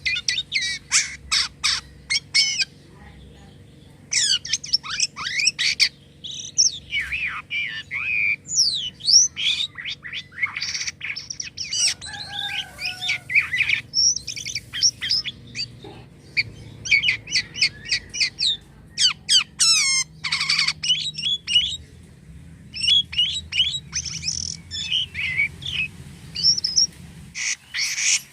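Jalak kapas myna singing a long, rapid medley of chirps, whistled glides and harsh squeaky notes in quick bursts, broken by a couple of short pauses.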